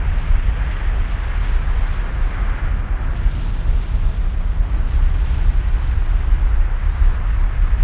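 Kilauea's erupting lava fountain: a steady deep rumble with a rushing hiss over it, without separate blasts; the hiss brightens about three seconds in.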